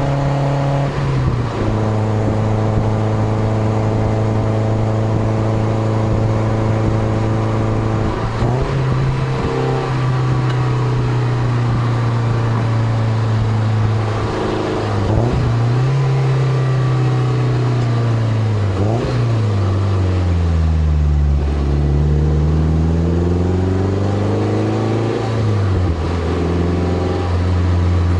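2003 Toyota MR2 Spyder's 1ZZ-FE four-cylinder running through a Powerhouse Amuse Titanium Extra titanium cat-back exhaust, heard close to the tailpipe. The engine holds a steady speed for several seconds at a time, with quick dips and rises in pitch, and in the last third drops to a deep low note and climbs again before a sudden drop near the end.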